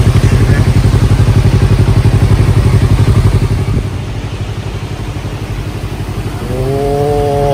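Yamaha YZF-R25's parallel-twin engine idling with a steady low pulse. After about three and a half seconds it drops to a quieter engine sound, which rises in pitch near the end.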